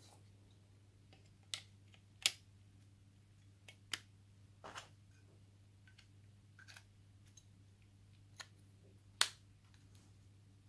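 Sharp plastic clicks and taps from handling a Nokia E50 mobile phone, fingers working its casing and back cover. About half a dozen separate clicks are spread out, the two loudest about two seconds and nine seconds in.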